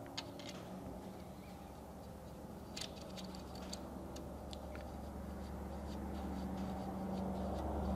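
Scattered light metal clicks and clinks as a thread-cleaning tap and its handle are fitted into the bushing of a ProMaxx Mikey extractor fixture on an LS cylinder head. A low steady hum comes up about three seconds in and grows slowly louder.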